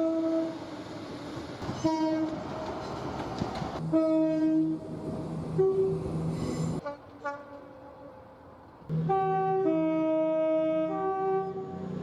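Train horns sounding in a string of short clips: a couple of brief single blasts, then two-tone horns alternating between a lower and a higher note, the last one sounding high, low, high.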